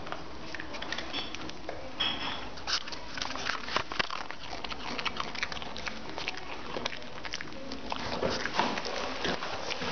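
A poodle crunching and chewing dry cereal: a busy run of sharp, irregular crunches.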